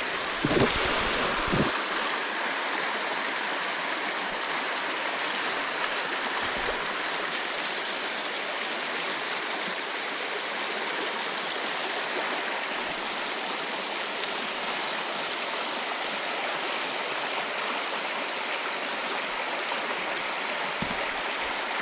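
River water flowing over rocks: a steady, even rush that does not change.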